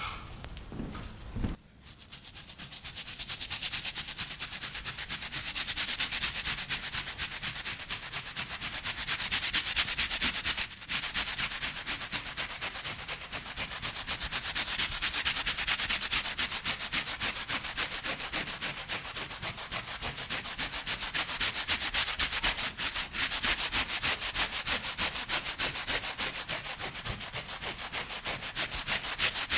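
A rug being scrubbed by hand with a brush, in quick, even strokes several times a second. The scrubbing starts about two seconds in and stops briefly near the middle.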